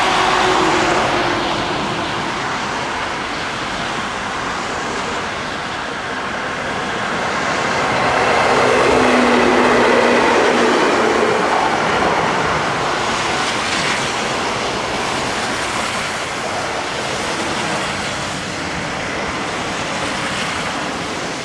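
Ichibata Electric Railway 3000 series electric train running past on the track, wheels and running gear loudest as it goes by about eight to eleven seconds in.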